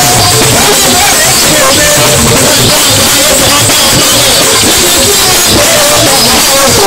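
Live Fuji praise singing: a male singer chanting into a microphone over percussion, played very loud through the sound system.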